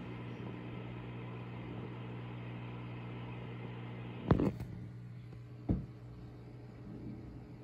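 Steady electric hum of an aquarium pump. A little past halfway there is a sharp knock, and about a second and a half later a second, weaker knock.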